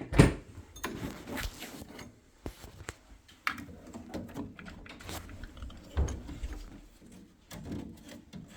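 Irregular knocks, clicks and rubbing of hard objects being handled, with the loudest knock right at the start.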